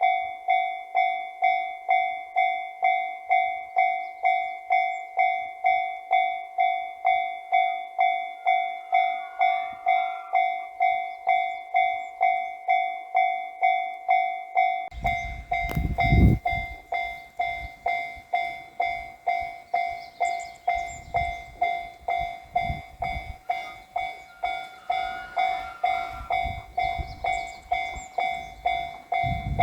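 Japanese railway level-crossing warning bell ringing steadily in a quick, even rhythm. About halfway through, the low rumble of an approaching train comes in beneath it and swells again near the end.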